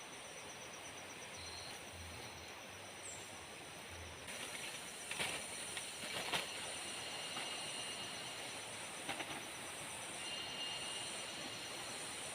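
Steady tropical forest ambience: an even hiss with a fast, high-pitched pulsing insect trill running through it, and a few faint knocks around the middle.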